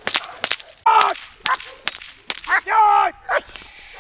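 A training whip cracking sharply several times in quick succession while a German Shepherd barks a couple of times.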